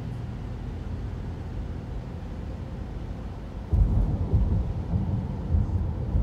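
Low rumble of a car driving on a wet road, heard from inside the cabin. About two-thirds of the way in the rumble turns suddenly louder and more uneven.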